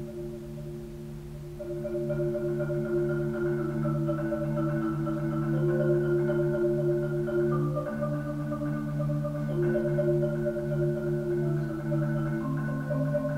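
Solo concert marimba playing slow rolled chords: a low bass note held under upper notes that change every few seconds. It grows louder about two seconds in.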